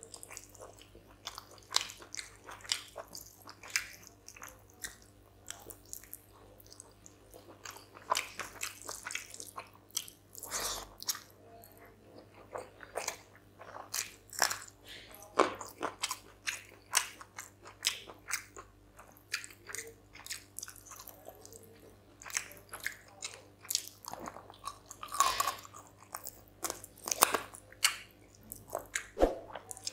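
Close-miked chewing and biting of a man eating spicy chicken curry and rice by hand, pulling meat off the bone, with many irregular sharp mouth clicks.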